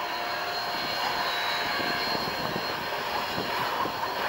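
Union Pacific 844, a 4-8-4 steam locomotive, standing with a steady hiss and rumble.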